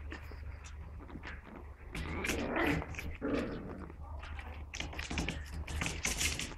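Six-week-old puppies playing together, making small puppy vocal sounds amid a run of short scratching and scuffling noises on blankets, busiest between about two and three and a half seconds in.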